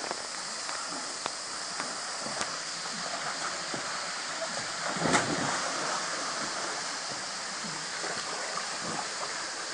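Small waterfall pouring steadily into a swimming pool, with swimmers splashing in the water; one louder splash about halfway through.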